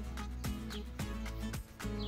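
Background music with a steady beat of about two drum hits a second over bass and held notes.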